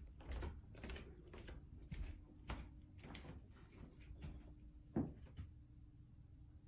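Faint footsteps on a floor, about two a second, with a louder single knock about five seconds in and a faint steady hum underneath.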